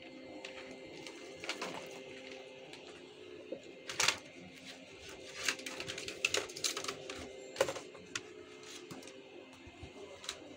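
Scattered clicks, knocks and rustles of gloved hands handling a bare laptop motherboard and its parts on a workbench, with the sharpest click about four seconds in and a cluster of them a little later. A steady faint hum runs underneath.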